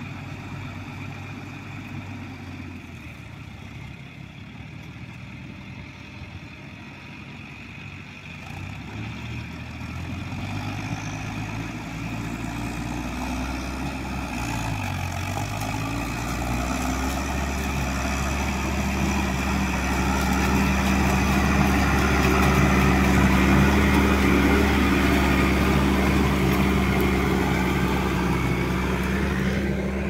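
Tractor diesel engines working under ploughing load. The nearer New Holland TM115 grows steadily louder as it comes closer, and its engine pitch dips briefly and recovers about halfway through.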